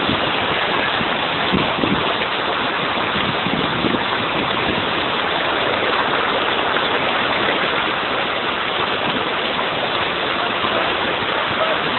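Water rushing in a steady, unbroken roar as it flows out of a dam.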